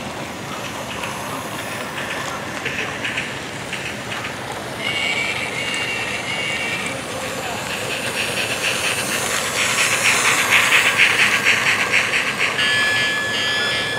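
Bigjigs Mallard battery-operated toy engine running on plastic track. Its small electric motor hums and its wheels tick rapidly over the rails and joints, loudest from about ten to twelve seconds in as it runs close by. A steady hiss lies underneath throughout, and a high steady whine starts near the end.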